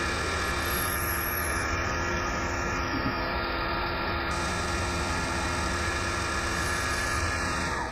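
Milling machine spindle running with a drill bit cutting through a metal disc: a steady machine drone with a few held tones over a low hum.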